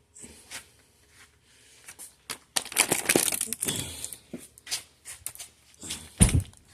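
Rustling and crinkling of things being handled, with scattered clicks and a heavy thump near the end.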